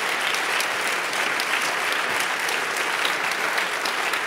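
Large audience clapping in steady, sustained applause.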